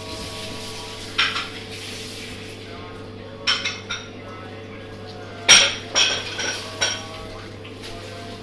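Cutlery clinking against a plate or dish, about six short clinks with a brief ring, over a steady low hum.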